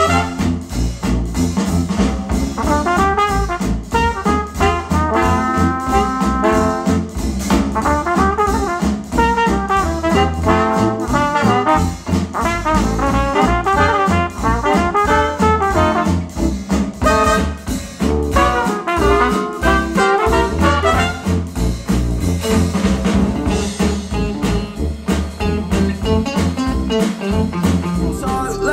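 Retro jazz with brass horns and a steady beat, played back through KEF Q150 bookshelf speakers driven by an Arcam SA10 integrated amplifier.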